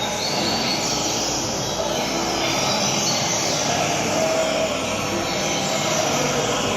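Steady hiss-like background noise with faint, high chirping notes from a double-collared seedeater (coleiro) singing.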